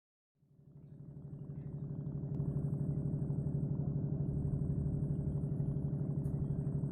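Boat engine running steadily with a fast, even throb, fading in from silence over the first two seconds.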